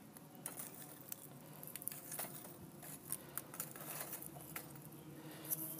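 Faint, irregular light clicks and rustling, several a second.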